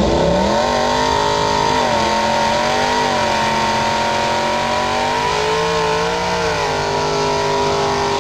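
Holden VT Commodore engine held at high revs through a rolling burnout. The pitch rises sharply as it winds up at the start, then holds high and wavers up and down, over the noise of the smoking rear tyres spinning on the track.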